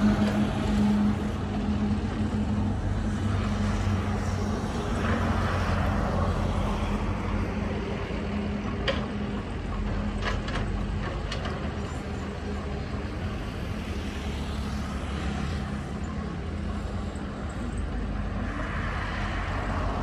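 Diesel engines of a crawler bulldozer and a CAT 312C excavator running as they push and dig soil, a steady drone. A few sharp clanks come a little before and after the middle.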